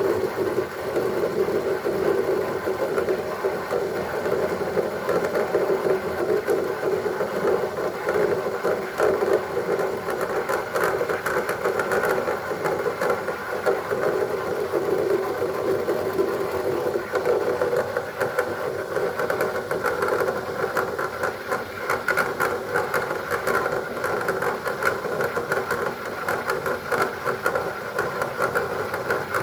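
Steam cleaner running steadily, a continuous machine drone with scattered faint clicks, as it steams ice off a refrigerator's freezer evaporator to defrost it.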